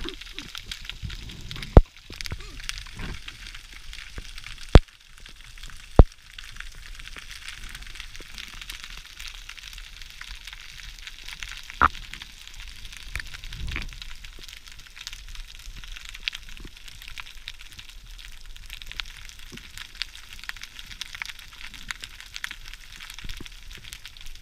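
Underwater ambience picked up by a camera in its housing: a steady fine crackle, broken by three sharp knocks in the first six seconds and a softer one about halfway through.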